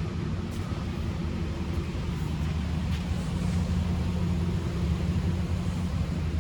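2009 Suzuki Equator pickup's engine running steadily, a low even hum that grows a little louder in the second half.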